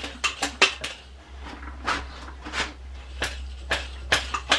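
Motorcycle front fork leg pumped by hand to force out the last of the old fork oil, making a string of sharp metallic clicks and clinks with a short lull about a second in. A faint low hum runs underneath.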